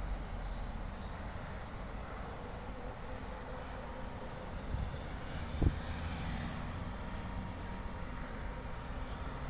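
Street ambience: a steady low rumble of traffic, with a thin high-pitched squeal that comes in twice, once early and again near the end. A single sharp knock sounds a little past halfway.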